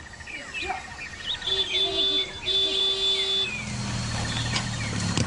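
Small birds chirping with short up-and-down calls and a few held notes. About three and a half seconds in, a steady low engine hum comes in.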